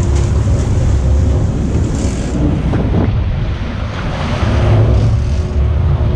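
Sportfishing boat underway: wind rushing over the microphone and water churning along the hull, over a steady low engine drone.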